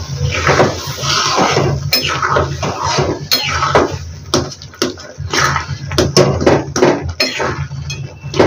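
Long metal spoon stirring thick chickpea curry in an aluminium kadai, scraping and clinking against the pan again and again.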